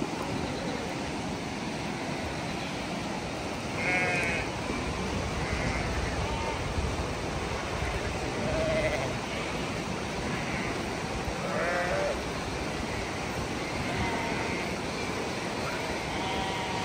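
A flock of sheep on the move, with individual sheep bleating several times over a steady rushing background noise.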